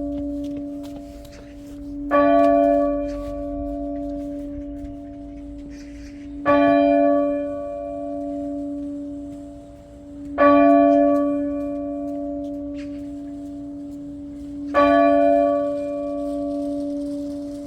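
Church bell tolling to call the faithful to Mass: the same bell struck four times, about every four seconds, each stroke ringing on with a long hum that fades slowly before the next.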